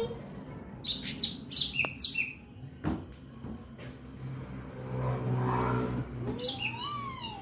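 A cucak ranting, a green leafbird, sings in bursts of sharp, quick chirps and swooping whistled notes. A single sharp click comes about three seconds in, and a low hum rises and fades around the middle.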